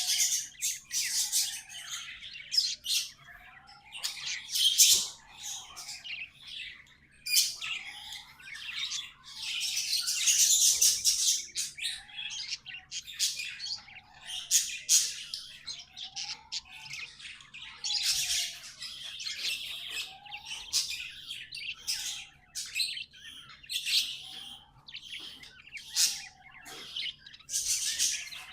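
Pet budgies (budgerigars) chattering and warbling in a rapid, continuous stream of high chirps with occasional squawks. Softer lower calls rise and fall in pitch about every two seconds underneath.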